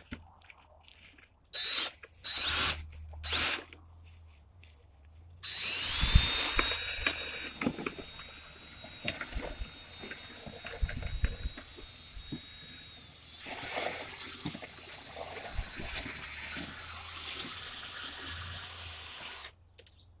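A power drill spinning a dryer vent cleaning brush on its rods through the vent duct. It starts about five seconds in with a loud burst, then runs for about fourteen seconds with a steady high whine over scraping noise, the whine changing pitch partway through. A few knocks and handling sounds come before it starts.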